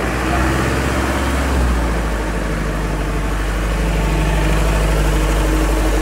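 Heavy diesel engine of earthmoving machinery running steadily, a low, even drone.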